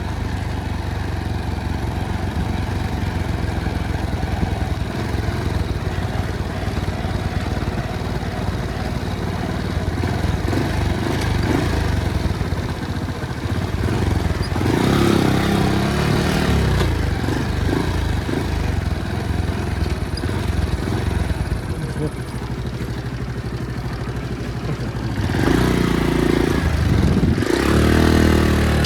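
Motorcycle engine running under way during a ride, with louder, noisier stretches about halfway through and again near the end.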